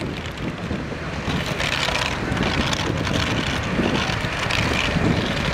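Wind buffeting the microphone over road traffic noise, a heavy low rumble with a hiss that swells and fades.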